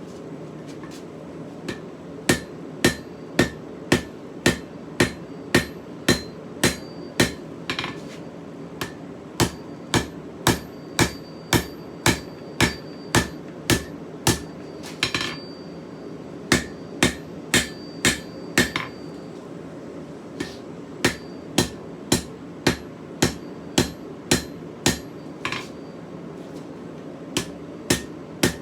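Blacksmith's hand hammer striking hot steel on an anvil, about two blows a second in runs broken by short pauses, some blows ringing briefly. This is forging a scissors blank: setting down the steel between the heels of the two blades-to-be.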